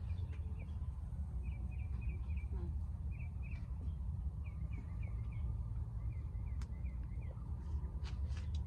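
A bird calling in several short runs of quick chirps, some notes falling in pitch, over a steady low rumble, with a few faint clicks.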